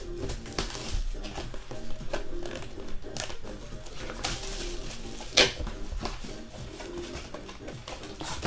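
Background music with held notes, over the crinkle and rustle of a Panini football card pack being torn open and its cards handled, with a sharp crackle about five seconds in.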